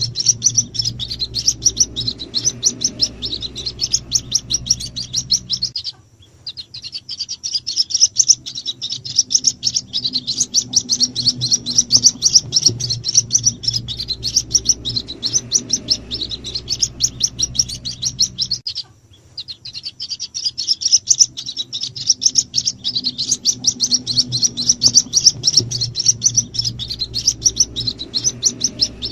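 White-breasted waterhen chicks calling: rapid, high cheeping, many calls a second, over a steady low hum. It breaks off briefly twice, as a looped lure recording for drawing in the parent birds.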